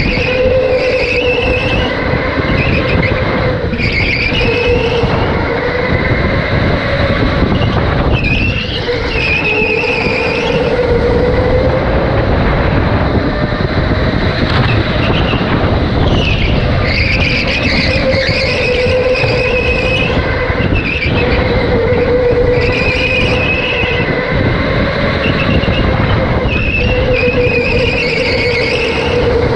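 Electric go-kart at racing speed: its motor whines, rising and falling in pitch as it speeds up and slows, over a constant rumble from the kart on the concrete floor. Its tyres squeal briefly, again and again, as it is thrown through the corners.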